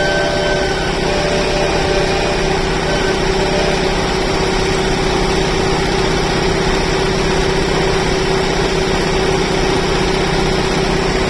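Old sawmill machinery running steadily: a constant engine-like drone with a steady hum and no change in speed.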